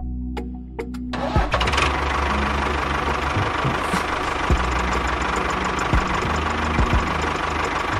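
A miniature model tractor starts up about a second in and runs steadily with a dense, rattling engine-like sound as it pulls a loaded trolley. Low background music plays underneath.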